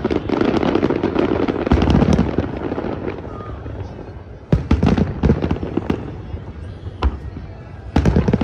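Aerial fireworks exploding: a rapid barrage of bangs and crackling for about two seconds, then fewer, separate booms spaced a second or more apart.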